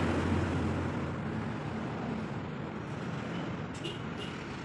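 Road traffic going by: a heavy vehicle's low engine rumble that fades away within the first second, leaving a steady traffic hum, with two faint clicks near the end.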